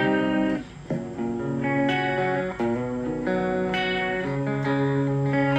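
Electric guitar played clean through a Blackstar ID:Core Stereo 10 V2 practice amp with its chorus effect on, turned up high. Ringing chords change about every second, with a short gap about a second in.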